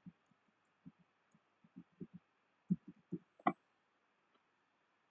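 Computer keyboard keystrokes: about ten dull, irregular taps, the loudest and sharpest about three and a half seconds in, over a faint steady hiss.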